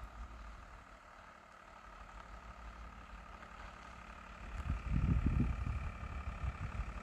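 Audi A2 cars in a convoy idling and pulling away slowly, a steady engine hum. A louder low rumble swells about five seconds in and then eases.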